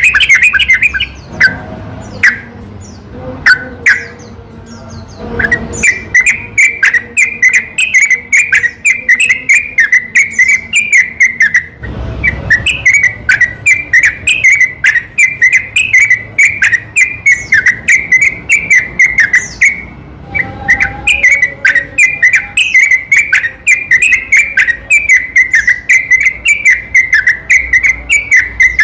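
Sooty-headed bulbul song, a lure recording: a few scattered whistled notes in the first seconds, then a long, nearly unbroken run of quick, bubbling whistled phrases that pauses briefly twice.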